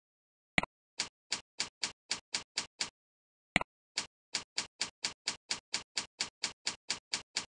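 Computer keyboard typing: a steady run of identical key clicks at about four a second, each run opened by a mouse click. There are two runs, the first about two seconds long and the second about four, with dead silence in the pause between them.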